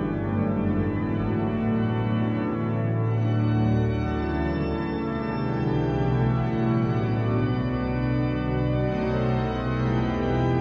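Church pipe organ playing slow, sustained full chords over a moving bass line, the bass shifting to a new note about three and a half seconds in.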